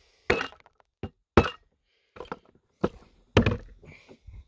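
A mallet knocking on a Lee Classic Loader's bullet-seating die, about six irregular blows, seating a 405-grain hard-cast bullet into a .45-70 case.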